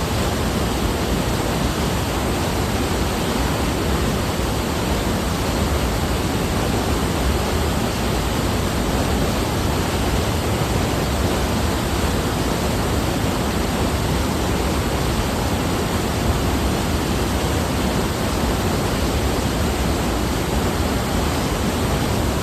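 Giessbach Falls, a cascading mountain waterfall: a steady, unbroken rush of falling water.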